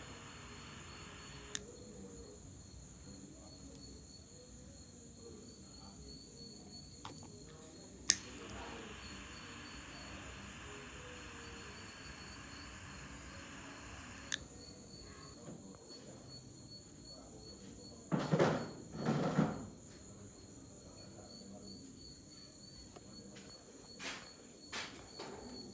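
Crickets chirping steadily in the background, with a few sharp clicks. Two short, louder noisy sounds come together about two-thirds of the way through.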